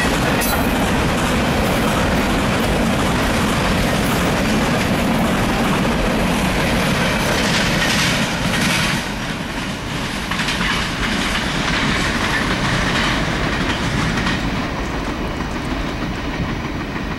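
Loaded refrigerated boxcars of a freight train rolling past at close range: steel wheels clacking over the rail joints with a steady rumble. The last car goes by about eight seconds in, after which the sound drops and fades as the train moves away.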